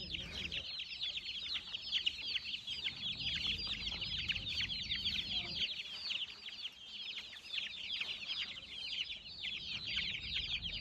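A brood of Aseel chicks peeping nonstop: many short, high cheeps overlapping, each falling in pitch.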